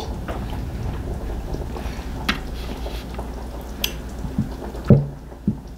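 Quiet kitchen room tone with a steady low hum. A fork clicks lightly against a plate twice while a pancake is cut, and a few short vocal sounds come near the end.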